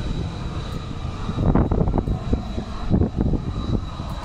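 Embraer E175 jet taxiing, its turbofan engines giving a steady high whine, with wind buffeting the microphone in gusts.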